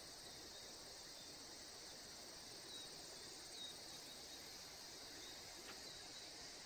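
Faint, steady high-pitched drone of summer cicadas, with a few short, faint chirps over it.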